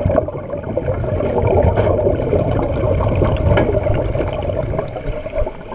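Muffled underwater noise picked up by a GoPro inside its waterproof housing: a steady low rumble and rush of moving water with scattered small crackles of bubbles.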